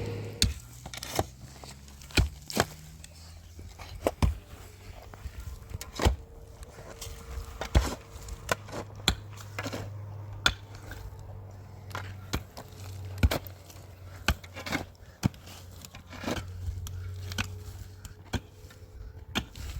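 A series of irregular sharp knocks, one every second or two at uneven strength, with scraping between them and a low steady hum underneath.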